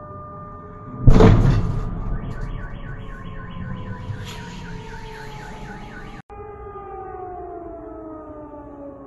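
A loud explosion about a second in, from rocket shelling or an air-defence interception, sets off a car alarm pulsing about three times a second. Under it an air-raid siren holds a tone that slowly falls in pitch.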